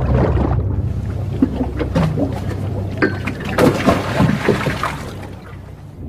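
Sea water splashing and sloshing around a boat in irregular splashes, loudest a little past the middle and dying away near the end.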